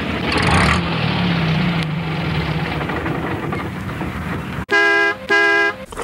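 A vehicle running with a steady rumble, then two short horn honks near the end.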